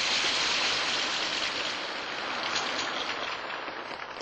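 Hundreds of spring-loaded mousetraps snapping shut and ping-pong balls bouncing off them in a dense clatter, like heavy rain: a mousetrap model of a nuclear chain reaction. The clatter thins and fades toward the end.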